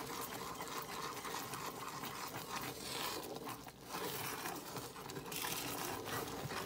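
Chocolate sugar-butter-milk mixture boiling in a heavy-bottomed saucepan, bubbling and crackling with many small pops while a wooden spoon stirs it steadily, scraping round the pan.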